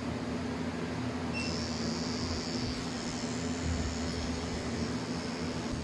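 A steady low mechanical hum, with a faint high whine that comes in about a second and a half in.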